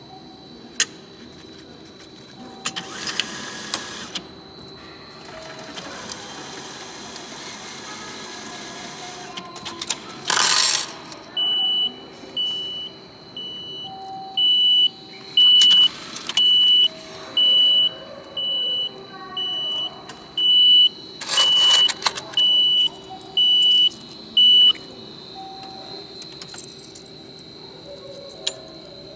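Railway fare adjustment machine drawing in a 10,000-yen banknote with a whirring feed, then dispensing change and a fare adjustment ticket with bursts of mechanical clatter. A high electronic beep repeats about once a second for some thirteen seconds, the machine's prompt to take the change and ticket.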